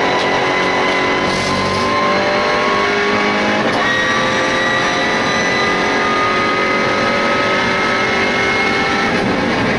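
MINI Challenge race car's engine heard from inside the cockpit, accelerating hard down a straight. The engine note climbs steadily in pitch, with a brief break about four seconds in before it climbs again.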